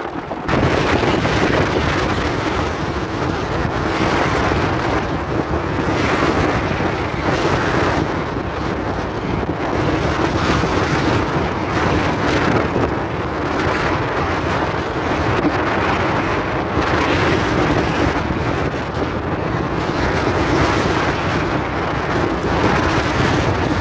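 Strong wind buffeting a phone's microphone: a loud, steady rumble and hiss that swells and eases slowly.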